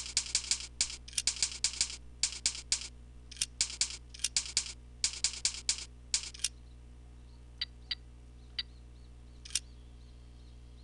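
Computer keyboard being typed on in quick runs of keystrokes, which stop about six and a half seconds in; a few single clicks follow, over a steady low hum.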